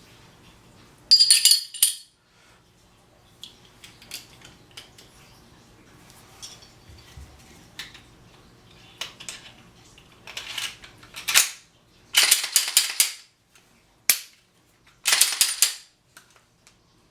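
Metal-on-metal clicks and short sliding clatters of a Glock 26 pistol being handled and worked just after oiling, with its slide and parts moved by hand. There are scattered single clicks and several quick rattling bursts, the loudest about a second in and in a run near the end.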